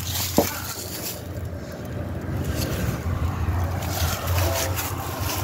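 Wind rumbling on a handheld phone's microphone, with one sharp click about half a second in.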